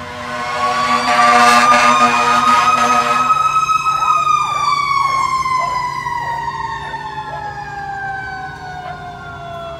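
Fire engine responding: its horn blares loudly for about three seconds over a siren that rises in pitch, then falls slowly for the rest of the time.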